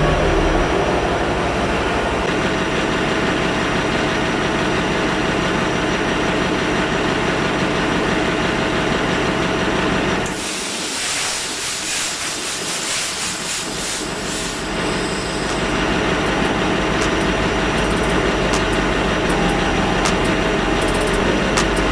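Ship's diesel generator and engine-room machinery running steadily, with a constant hum. About ten seconds in, a hiss of compressed air takes over for about four seconds while the low rumble drops away, then the steady machinery noise returns.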